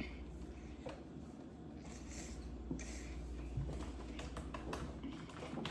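Someone drinking from a jug: faint gulps and swallows with scattered small clicks, quiet throughout.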